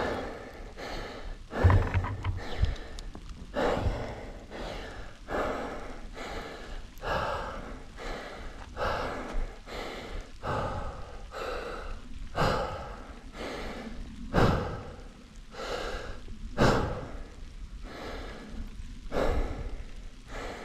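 A mountain biker panting hard, about one deep breath a second, out of breath after pumping up a rooty trail.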